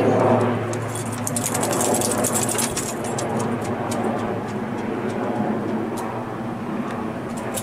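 Sea King twin-turbine helicopter flying overhead: a steady drone of rotor and engines, with a patch of faint, rapid high clicks about one to three seconds in.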